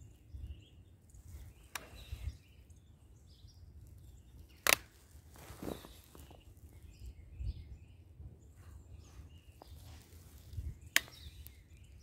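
Faint woodland ambience: a low rumble on the microphone with scattered faint bird chirps, broken by three sharp clicks, the loudest about halfway through.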